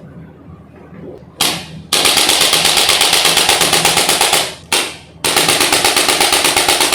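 A loud, fast mechanical rattle of about eight even pulses a second. It starts with a short burst, runs for a couple of seconds, stops for about half a second, then runs again.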